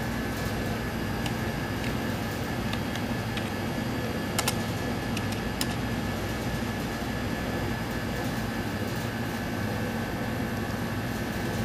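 Steady hum and hiss of room machinery such as cooling fans and ventilation, with a thin steady high tone and a low electrical hum under it. A few sharp clicks, the clearest about four and a half and five and a half seconds in.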